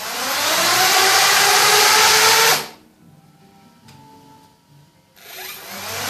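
Parrot Bebop drone's four propeller motors running at high speed with a whine that has just risen in pitch, then cutting off suddenly about two and a half seconds in. After a short pause they spin up again near the end with a rising whine.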